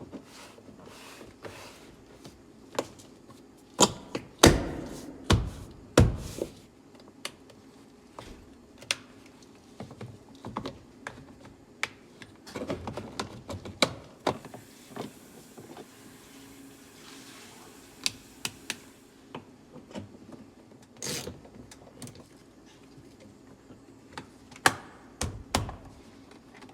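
Car door panel being pressed back onto the door and its plastic retaining clips snapped home: a long run of sharp knocks, taps and clicks, loudest about four to six seconds in.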